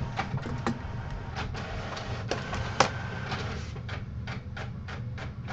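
Printer running: a string of short mechanical clicks and strokes over a steady low hum.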